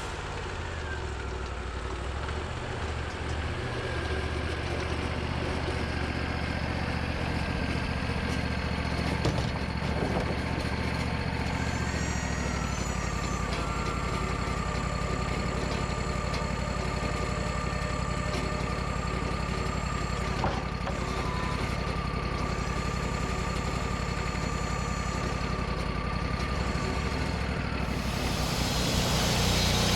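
Sawmill engine running steadily, with a thin steady whine joining in about twelve seconds in and dropping away near the end, and a few light knocks.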